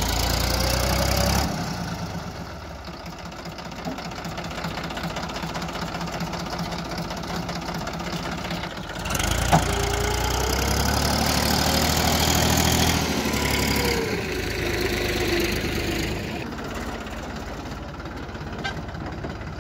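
Diesel tractor engines running as tractors haul trailers loaded with sand through loose sand. The engine note swells and its pitch rises and falls, loudest for the first second or so and again from about nine to fourteen seconds in. A single sharp knock sounds about nine and a half seconds in.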